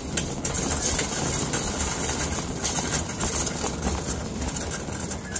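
Shopping cart being pushed along a store floor: a steady rolling rumble from the wheels with a continuous rattle from the wire basket.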